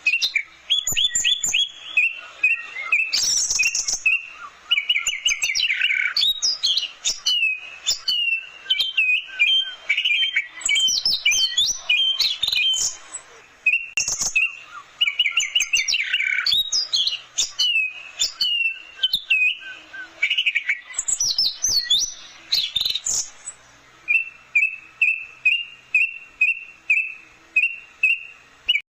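Orange-headed thrush singing a long, varied song of rapid whistled phrases, trills and mimicked notes; near the end it settles into a run of short repeated notes, about two or three a second.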